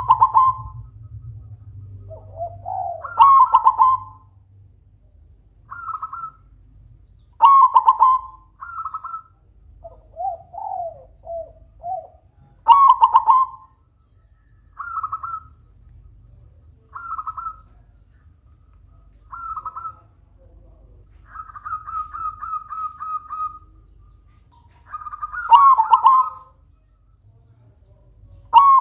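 Silver zebra dove (perkutut) cooing. Loud cooing phrases come every few seconds with softer short coos between them, and about three-quarters of the way through there is a quick run of rapid repeated notes.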